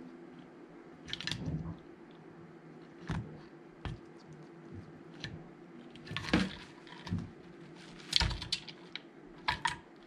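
Harris's hawk's beak and talons knocking and scraping on a wooden food puzzle toy as it works the pieces loose: an irregular run of clicks and taps, with the loudest knocks past the middle and near the end.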